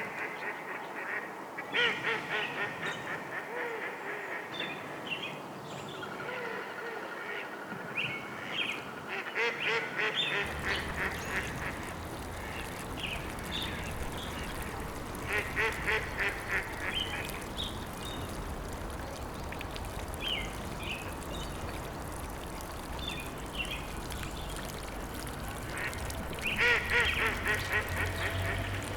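Ducks quacking in repeated rapid series, mixed with scattered short bird chirps. About ten seconds in, a steady rush of flowing water comes in under the calls.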